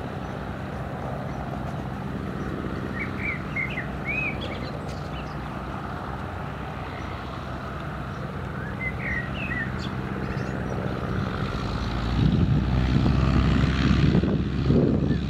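Light aircraft's propeller engine running at low power as it taxis across grass, growing louder near the end. Birds chirp a few times in the background.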